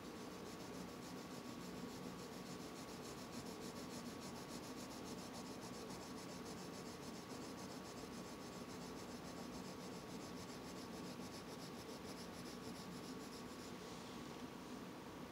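Colored pencil scratching softly on a paper card in rapid, even shading strokes, over a faint steady hum. The scratching stops about a second before the end.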